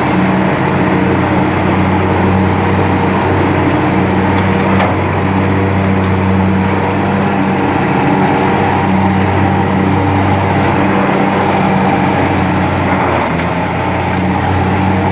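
An engine running steadily at an even pace, with a low, constant hum and no breaks.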